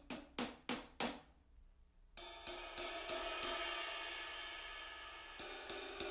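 Drum kit played: four sharp hits in the first second, then a cymbal crash about two seconds in, a quick run of cymbal and hi-hat strokes, and another crash near the end. The kit is heard through a blend of Stager SR-2N and SR-3 microphones, mixed on an SSL console.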